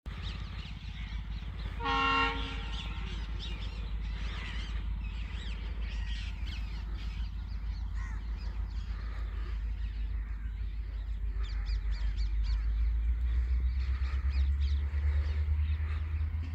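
A train horn sounds briefly about two seconds in, over a steady low rumble that grows louder over the last few seconds, with crows cawing.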